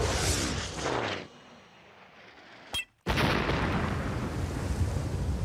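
Black-powder flintlock mortar gun firing: the sound of a blast fading out over the first second. After a short dropout, a second sudden boom about three seconds in, with a long noisy tail.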